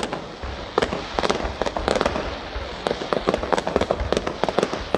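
Aerial fireworks exploding, a dense run of irregular sharp bangs and crackles, several a second, each with a short echo.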